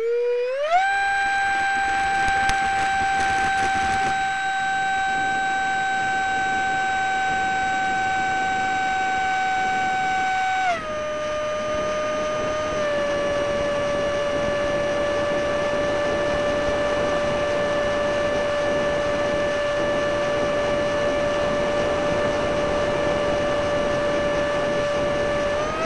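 Stock electric ducted fan of a TWM J-10B RC jet on a 4S LiPo, a high steady whine with a rushing noise under it. It finishes spooling up in the first second, holds at full throttle, then drops in pitch as the throttle is eased back about eleven seconds in, and holds there.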